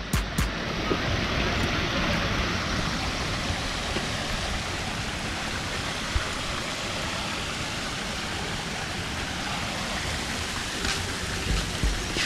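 Small waterfall spilling over rocks into a pond: a steady splashing rush of water.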